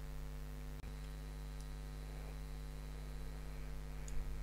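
Steady electrical mains hum with a stack of overtones, and a faint click about a second in.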